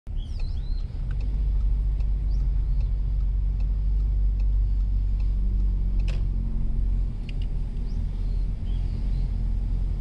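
A car driving along a road, heard from inside the cabin as a steady low rumble of engine and tyres. A few faint high chirps sound now and then, and a single sharp click comes about six seconds in.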